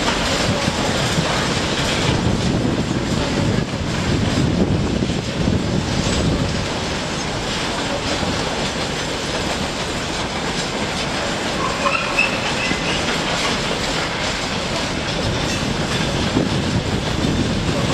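Freight train wagons rolling past on the rails, a steady continuous noise of wheels on track.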